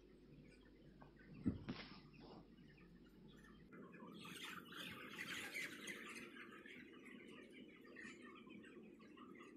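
A large flock of 32-day-old broiler chickens in a closed shed: many overlapping soft chirps and peeps, swelling in the middle, over a steady low hum. A single thump about a second and a half in.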